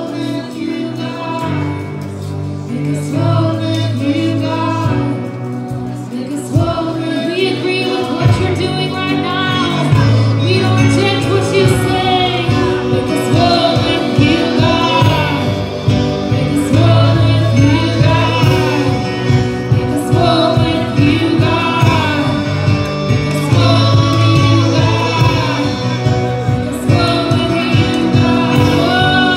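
Live worship band playing a slow spontaneous worship song: a woman sings lead over keyboard, electric guitar and drums. The drums come in about seven seconds in and the music grows a little louder.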